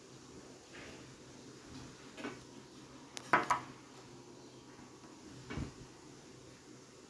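A few soft clicks and taps of small hard objects being handled close to the microphone, with a sharp double click about three and a half seconds in and a dull knock near the end.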